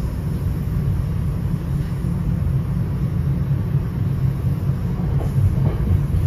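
Steady low rumble inside a moving NJ Transit Comet II/IV commuter coach, its wheels running on the rails.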